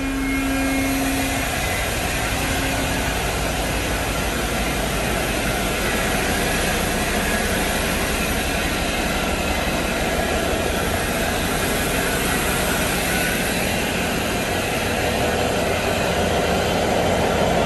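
Steady, loud engine-room machinery drone of running diesel engines and ventilation on a ship.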